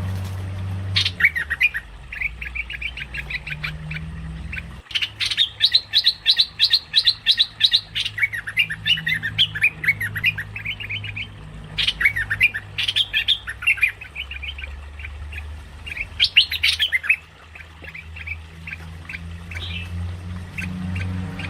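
Merbah lekir bulbul lure calls: rapid runs of short, harsh chattering notes in repeated bursts, the densest about five seconds in. A steady low hum runs underneath.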